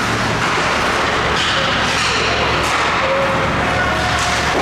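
Ice hockey arena during play: skates scraping on the ice and distant shouts from players and spectators over a steady low hum.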